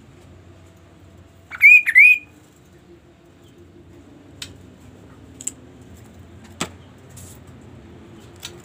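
A caged kaso-kaso bird gives a loud call of two whistled notes about a second and a half in, each note sweeping up and then down. A few faint ticks and a sharp click follow later.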